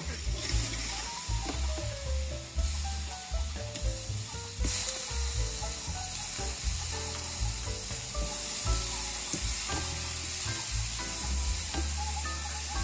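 Strips of seasoned beef fajita steak and garlic sizzling as they are laid into a hot cast-iron skillet, the sizzle growing louder about five seconds in as more meat goes in. Background music with a pulsing bass plays underneath.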